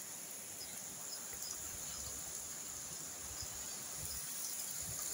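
Steady rain falling, with insects trilling in continuous high-pitched tones over it. A few low thumps come through, mostly in the second half.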